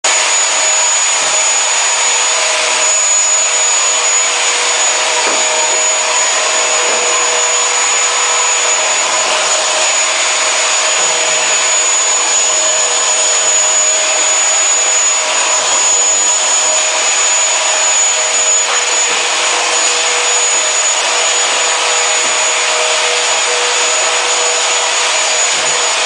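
Canister vacuum cleaner running steadily with a constant high whine as its floor nozzle is pushed over a tiled kitchen floor.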